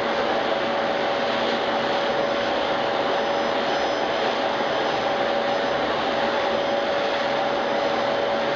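Electrolux Ergolite vacuum cleaner running steadily: an even rush of air with a steady whine from the motor.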